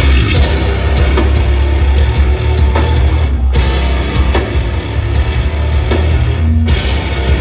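Live heavy rock band playing loud: electric guitars, bass and drums, kicking in abruptly at the start, with a heavy bass end.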